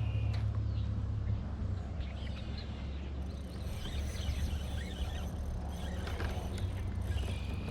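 Outdoor pond ambience: scattered short bird chirps over a steady low rumble.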